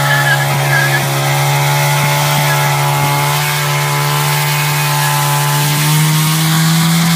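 Motorcycle engine running at steady high revs, its pitch held almost level and rising slightly near the end.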